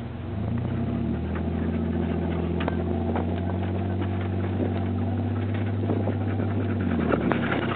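Engine of a vehicle towing a jet ski across a lawn on a chain. It speeds up about a second in, runs steadily under the pull, and eases off near the end, with a few light knocks.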